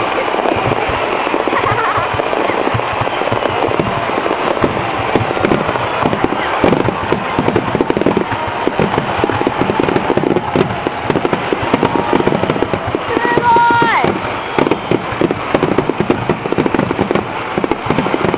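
Fireworks finale: many shells bursting at once in rapid, dense crackling and popping that never lets up, with voices of onlookers among it.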